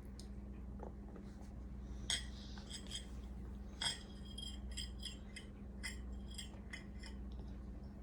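Eating utensil clinking and tapping against a dish: about a dozen light, scattered clinks with a short metallic ring, two sharper knocks among them about two and four seconds in.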